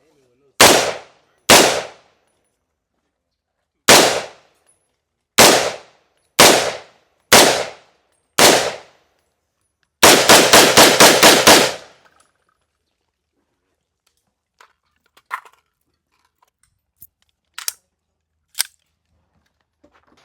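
Gunshots from a firearm: seven single shots spaced about a second apart, then a quick string of about eight rounds fired in under two seconds, followed by a few much fainter shots.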